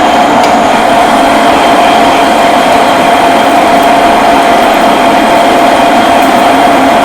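Metal lathe running while an indexable-insert parting tool cuts into steel round bar: a loud, steady machining noise with a constant whine.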